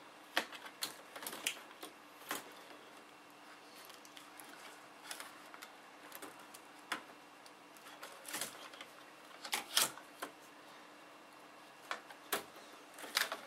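Scattered sharp clicks and taps of plastic laptop parts being handled and worked apart, irregular, with a small cluster of louder clicks near the end.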